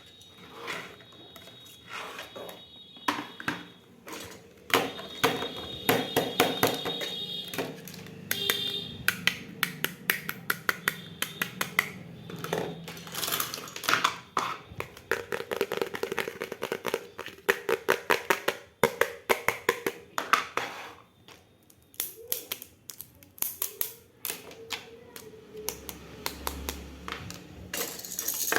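Small plastic miniature toy kitchen pieces being handled and unpacked: a long run of light clicks and taps, with brief thin high tones in the first few seconds.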